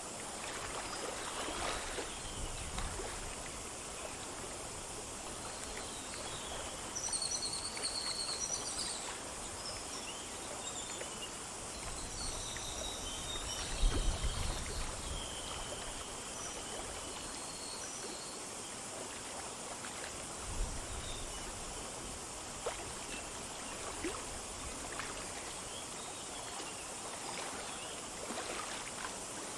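Small forest stream flowing over stones, a steady rush of water, with birds chirping now and then over it, most around seven seconds in and again a few seconds later. A couple of low thumps come partway through.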